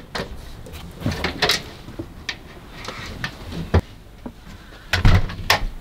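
Irregular knocks and clicks of things being handled indoors, like door or drawer clunks, with a heavier thud and clack about five seconds in.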